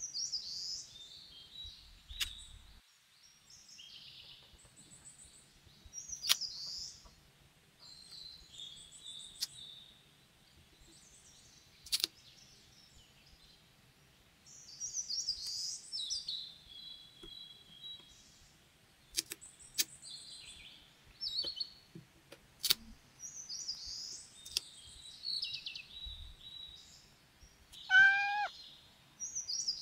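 Small paper cutouts and a thin plastic-coated sheet rustling and crinkling in short bursts as metal tweezers pick up and press them into place, with several sharp tweezer clicks. Near the end a single cat meow, rising then falling in pitch, is the loudest sound.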